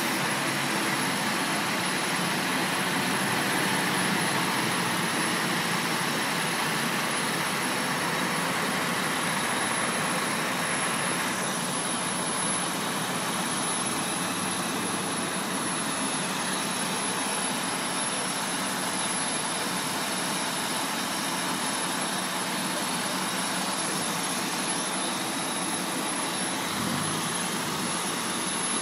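Fire engines' diesel engines running steadily in the street, a constant even noise with no siren.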